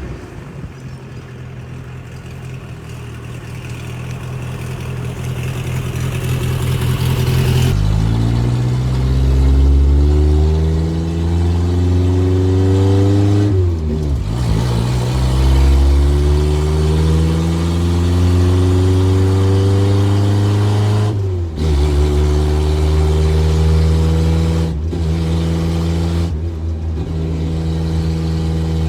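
A 1973 Ford Pinto's four-cylinder engine accelerating hard under way. After the first several seconds it gets louder, and the revs climb, drop off and climb again, as when pulling through the gears. Near the end it holds a steadier pitch.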